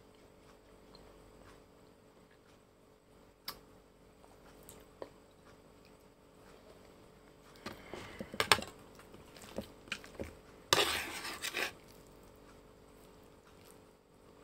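A fork clinking and scraping on the plate as noodles are picked up: scattered small clicks, a quick run of clinks about 8 seconds in, then a loud scrape lasting about a second.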